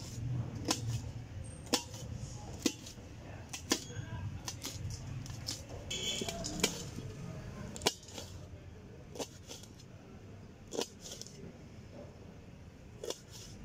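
Knife slicing green chillies on the upturned base of a stainless steel bowl: the blade strikes the steel with sharp clicks about once a second, coming further apart toward the end.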